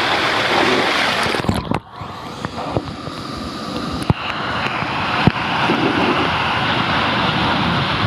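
Water rushing through an enclosed fibreglass body-slide tube as a rider slides down it. The rush drops away briefly about two seconds in, a few sharp knocks follow over the next few seconds, and then the rushing builds back to a steady level.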